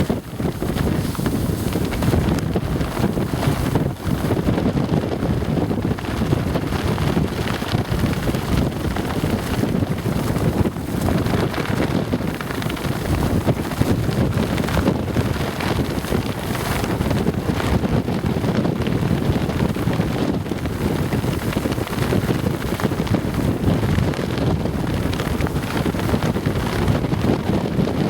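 Strong, unbroken wind buffeting the microphone, with loose wind pants flapping rapidly in the gusts.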